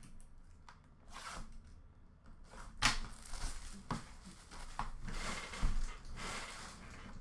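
A cardboard hobby box of hockey cards being handled on a glass counter: a few sharp knocks and taps, the loudest about three seconds in, with rustling and tearing of its wrapping.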